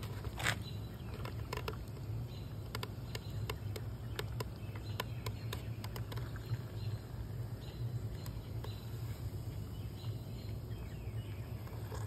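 Outdoor ambience: a steady low hum with scattered sharp clicks and short high chirps every second or two.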